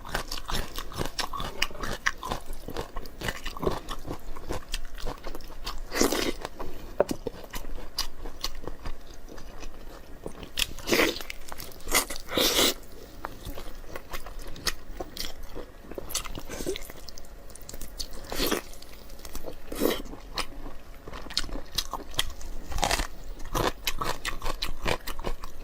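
Close-miked chewing and biting of food: irregular moist clicks and crunches, with several louder crunchy bites scattered through.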